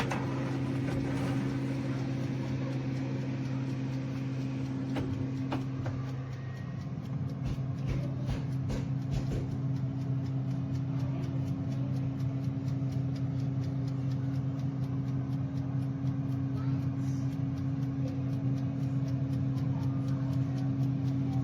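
Countertop air fryer toaster oven running on its air fry setting: a steady motor and fan hum, with a few clicks and knocks in the first several seconds.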